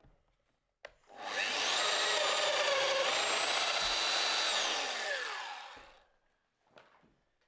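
Festool DF 700 EQ domino joiner switched on with a click, its motor spinning up to a steady high whine as it plunges a mortise into the timber brace; the pitch dips midway, then the motor winds down with falling pitch and stops.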